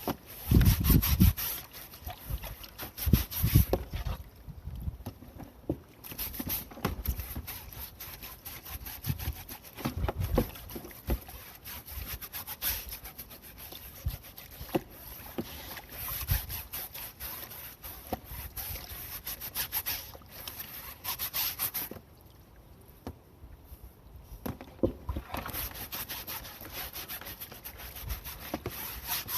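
A perforated kitchen range hood filter being scrubbed, a fast rasping rub of many quick strokes. It pauses twice, briefly a few seconds in and again for a few seconds about three-quarters of the way through, and there are a few low knocks near the start.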